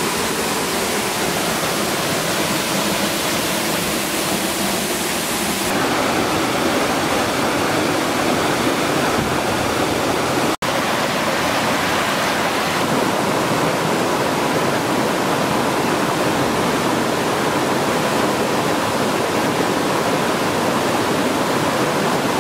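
Waterfall pouring and splashing over rock in a steady rush of water. The sound changes slightly a couple of times and drops out for an instant about halfway through.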